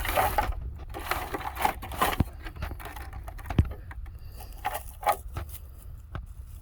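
Scattered light clicks, knocks and rustling of objects being handled and moved about.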